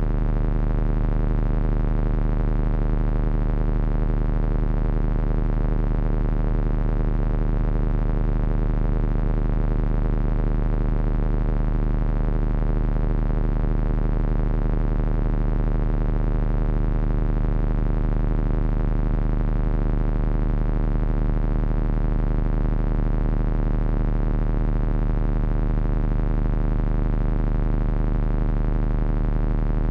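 Heavy electronic drone noise from three Frequency Analyzer v1 units controlled by an HP 200C audio oscillator. A dense layer of sustained tones sits over a strong low hum, wavering slightly in the middle range and holding steady without a break.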